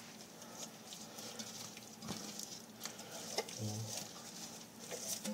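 Hand rubbing and patting brown sugar into the skin of a raw whole chicken in an enamelled cast-iron pot: faint soft pats and scattered small clicks.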